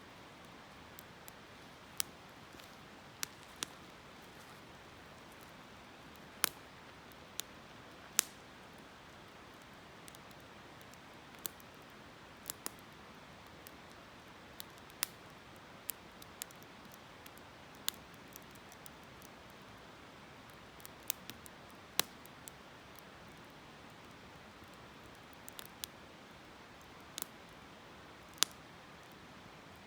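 Wood fire crackling, with sharp irregular snaps and pops every second or so over a steady soft rush of a flowing river.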